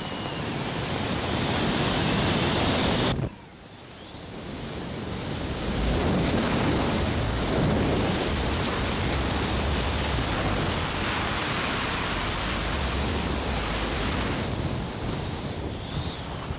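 Wind buffeting the camera's microphone during a parachute descent: a steady rushing noise. It drops out suddenly about three seconds in and builds back up over the next few seconds.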